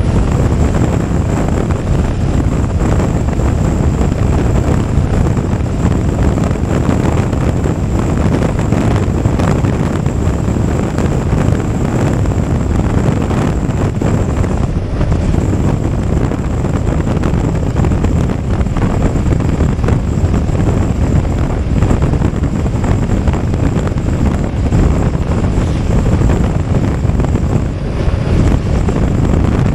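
Steady wind noise rushing over the microphone, with the BMW F 850 GS motorcycle's engine running beneath it at a constant riding speed.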